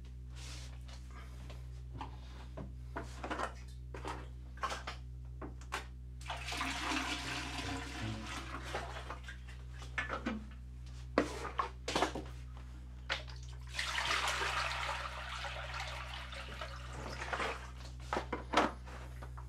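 Water pouring or splashing in two spells of a few seconds each, with clicks and knocks of objects being handled before, between and after.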